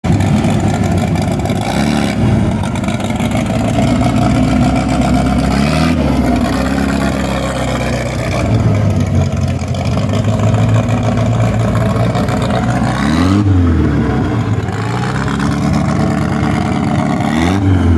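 Chevrolet Caravan's four-cylinder engine idling loud and rumbly, blipped up and back down about four times.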